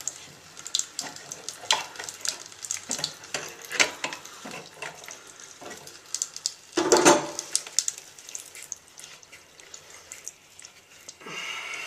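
Faucet running with weak, sputtering water, broken by scattered clicks and knocks as the faucet is handled, with a louder rush about seven seconds in. The low flow comes from an aerator smashed up into the faucet.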